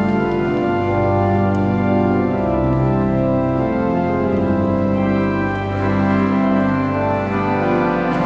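Church organ playing slow, held chords that change every couple of seconds.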